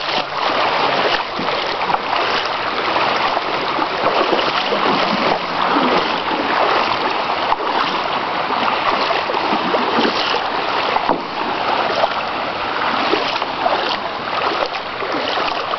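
Shallow river water rushing steadily over a stony riffle, with irregular splashing from feet wading through it.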